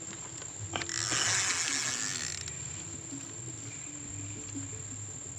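Insects shrilling steadily at one high pitch. About a second in, a loud rush of hiss sounds for about a second and a half, then cuts off.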